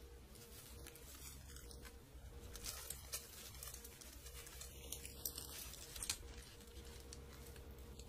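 Bicycle chain and chain tool handled by gloved hands: faint rustling with small metallic clicks, a few sharper clicks about three seconds in and again around five to six seconds in.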